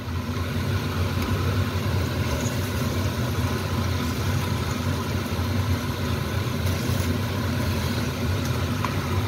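Fish pieces frying in oil in a wok, sizzling while a spatula turns them, over a steady low rumble.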